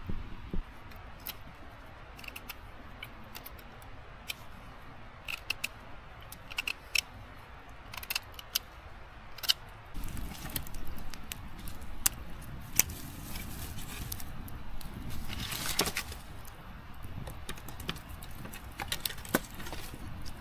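Hands working with sticks and branches: scattered sharp clicks and snaps of wood. From about halfway the rustling and scraping grows louder, with one longer scrape near the end.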